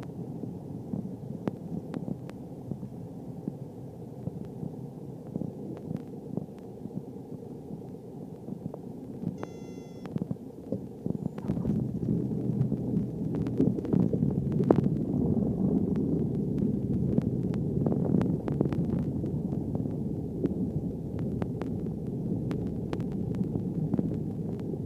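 Cessna 172 landing, heard inside the cabin: a steady low engine and airflow rumble with scattered clicks. A brief high tone sounds just under halfway through, then the rumble grows louder and rougher as the aircraft rolls along the runway.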